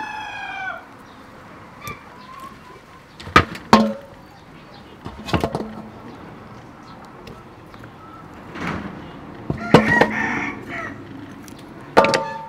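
A rooster's crow trails off in the first second. Then come several sharp clacks and knocks of cooked clam shells being pulled apart and knocking against each other and the stainless steel colander, the last one ringing briefly.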